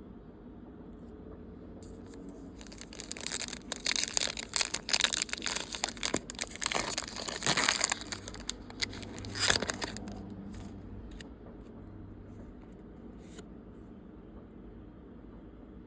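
Foil wrapper of a Pokémon trading-card booster pack being torn open and crinkled, a crackling that runs from about two seconds in to about ten seconds in. After that come only a few faint clicks of handling.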